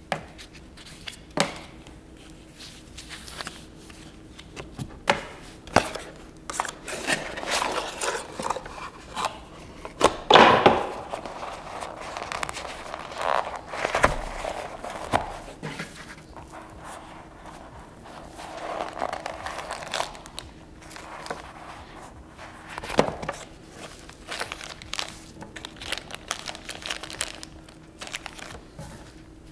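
Packaging being handled and opened: crinkling with scattered sharp clicks and knocks, loudest about ten seconds in.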